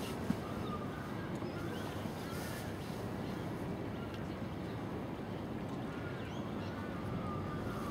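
Open-air ambience: a steady background rush with short chirping bird calls scattered throughout.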